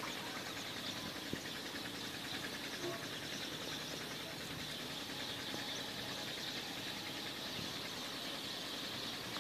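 Steady drone of an irrigation pump engine carried across a lake, with a steady high hiss above it.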